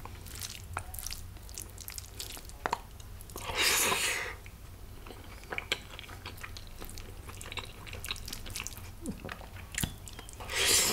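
Close-miked chewing of a mouthful of rice and rajma: many small mouth clicks and chewing noises. Two louder hissing rushes stand out, about four seconds in and near the end.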